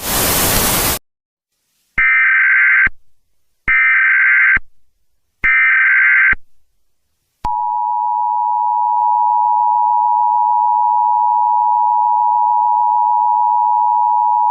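A one-second burst of loud static, then three short bursts of Emergency Alert System SAME header data tones about a second apart, then, about halfway through, the steady two-tone EAS attention signal begins and holds.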